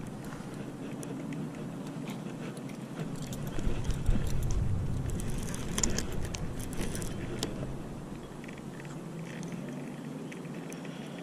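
Spinning reel ticking and rattling as a hooked carp is played, with a cluster of sharp clicks in the middle over a low steady rumble.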